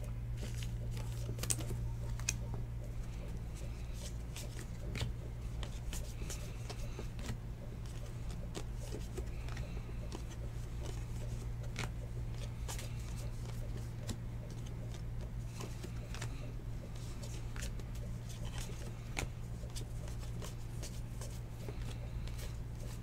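Trading cards being slid and flipped against one another by hand, a scatter of light clicks and rustles, over a steady low hum.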